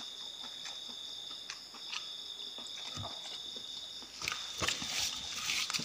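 Insects chirring steadily and high-pitched in the background, with soft clicks and smacks of a person eating with their fingers; a louder rustle about four seconds in.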